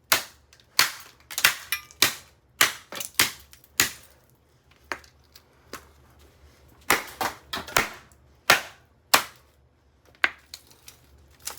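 A Revlon RVDA5036 hair dryer being smashed: a rapid run of sharp cracking blows on its housing, thinning out after about four seconds, then a second quick flurry a few seconds later and a few last hits.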